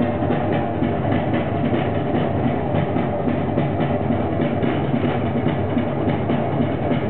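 Drum-driven dance music playing over a PA loudspeaker, a steady, dense rhythm of percussion that keeps up without a break.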